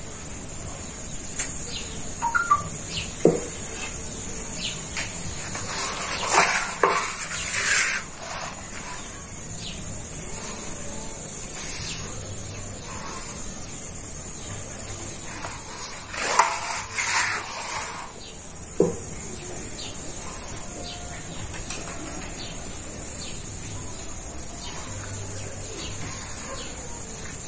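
Steady hiss of a gas-fired sac griddle under a sheet of yufka bread, with two bouts of papery rustling and flapping as the thin dough sheet is lifted and turned with a wooden stick. A few short chirps sound faintly now and then.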